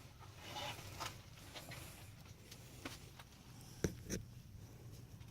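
Faint scraping and rustling, then two short, sharp taps or clicks in quick succession nearly four seconds in.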